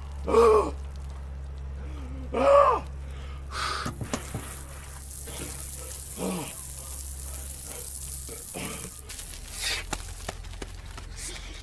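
Outdoor shower water spraying and splashing on a man rinsing shampoo from his head and body, with several short vocal exclamations from him, the loudest about half a second and two and a half seconds in.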